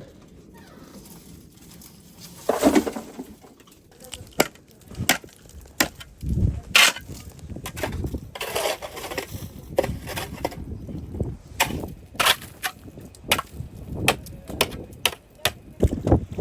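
Irregular sharp knocks and clatters, with a few longer scraping or rushing noises among them.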